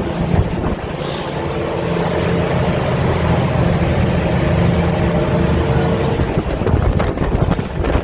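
Ferry's engine running steadily, with a constant rushing noise over it.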